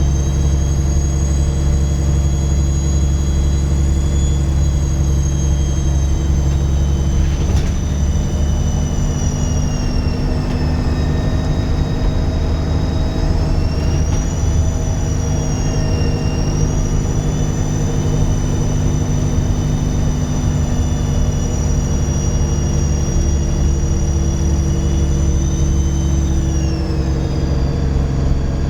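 Dennis Trident 2 double-decker bus under way, its diesel engine running with an incredibly loud, high turbo whistle. The whistle sags in pitch about a third of the way in, rises again, then drops near the end. There is a single knock about seven seconds in.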